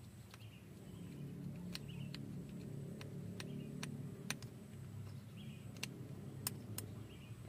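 Scattered light clicks of multitester probe tips tapping the pins of a horn spiral-cable connector during a continuity check, over a faint low steady hum.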